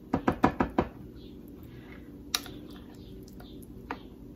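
A metal spoon clicking against a plastic food processor bowl while scooping pesto: a quick run of about six taps in the first second, then a single sharp click about two seconds in and a fainter one near the end.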